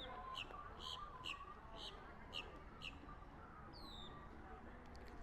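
A small bird chirping: a run of short, high chirps about two a second, then a single longer call falling in pitch near the middle.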